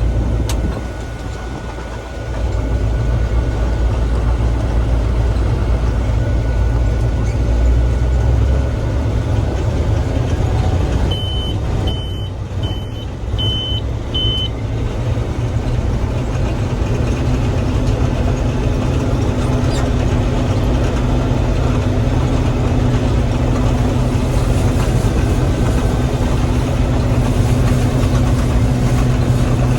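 Gleaner M3 combine running steadily as it starts threshing wheat, feeding the crop in. Five short high-pitched beeps sound in a row about halfway through, and a steady hum joins in near the end of the first half.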